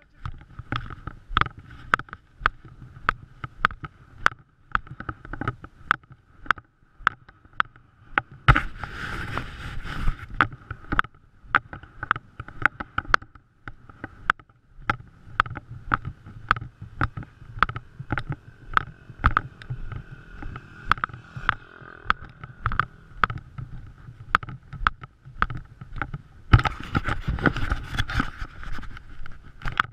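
Dirt bike ridden slowly over a rough, rutted track, its engine running at low speed, with a steady run of sharp clicks and knocks, about two a second, as the bike and mount rattle over the bumps. Two louder rushes of noise come about nine seconds in and near the end.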